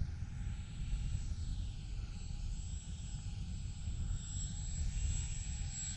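Electric motor and propeller of a SIG Four Star 20EP RC plane whining as it flies low on its landing approach, the pitch sliding up and down as it passes. Wind rumbles on the microphone throughout.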